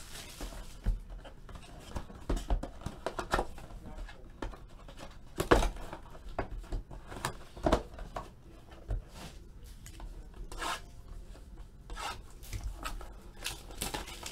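Hands opening and handling a 2014 Panini Select Football trading card box and its packs: cardboard and wrappers rubbing and sliding, with irregular rustles and sharper knocks, the loudest about five and a half and nearly eight seconds in.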